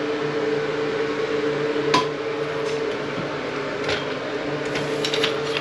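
A steady mechanical hum with a low pulsing tone underneath, broken by a sharp click about two seconds in and another about four seconds in, then a flurry of small clicks and rattles near the end.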